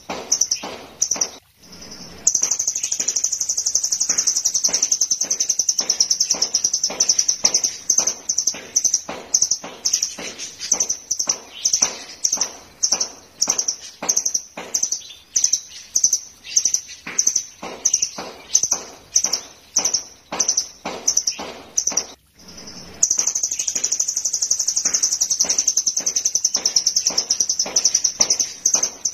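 Caged velvet-fronted nuthatch singing continuously: a long run of sharp repeated notes, two or three a second, joined twice by a fast, high trill lasting several seconds, once early and once near the end.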